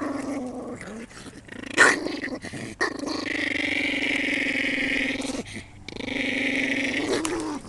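Miniature pinscher growling in long, steady growls, with a short sharp outburst about two seconds in. She is guarding an item that her owners want to take away from her, and the growl is her warning to keep it.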